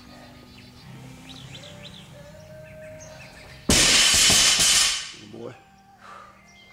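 A loaded barbell dropped to the floor: a sudden loud crash with about a second of clattering, over faint background music.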